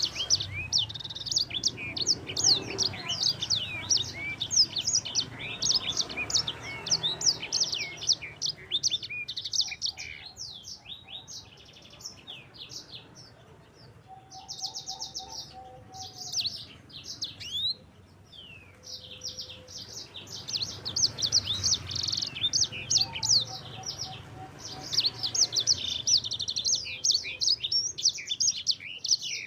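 Sanger songbird singing a fast, continuous roll of sweeping chirps and trills. The song thins out to sparser phrases midway, then picks up into dense rapid rolls again.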